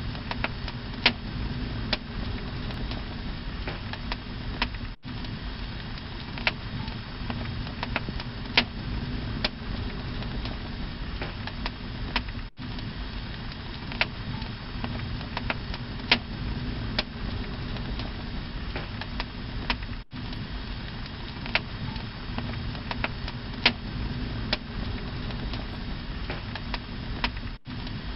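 Burning torch flames: a steady low rumble with scattered sharp crackles and pops.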